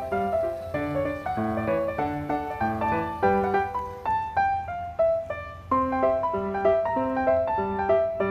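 Background piano music: a light, quick melody of single notes over a bass line.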